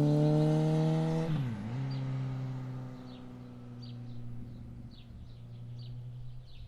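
Motorbike engine passing close by: its pitch climbs steadily as it approaches, dips sharply about a second and a half in as it goes past, then settles lower and fades away. Birds chirp faintly through the second half.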